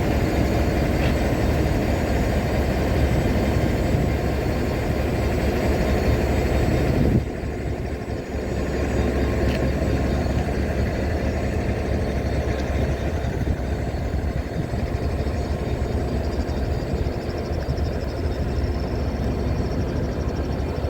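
Class 69 diesel-electric locomotive's EMD engine idling with a steady low rumble while the railhead treatment train stands in the platform. The sound drops abruptly in level about seven seconds in, then carries on.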